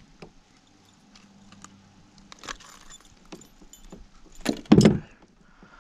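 Metal fishing pliers clicking and clinking as a hook is worked out of a northern pike's mouth, with a couple of louder knocks about four and a half seconds in.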